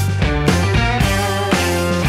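Background music with a steady beat of about two beats a second.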